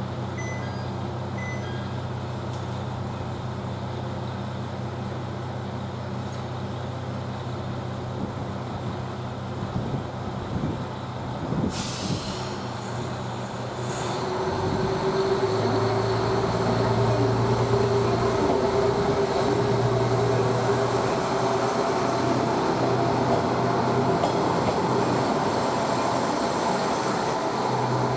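KiHa 110 diesel railcar with its engine idling, a short hiss of air about 12 seconds in, then from about 14 seconds the diesel engine runs louder and faster with a steady higher note.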